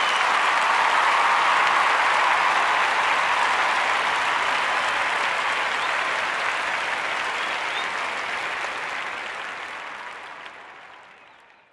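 Crowd applause and cheering, a dubbed-in sound effect, rising at the start and then fading out slowly to silence near the end.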